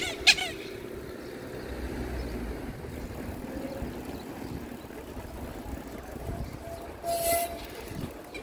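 Steady rumble of a bicycle ride on a paved bike path, tyres on the pavement and wind on the microphone, with two sharp rattles at the start and a brief hiss about seven seconds in.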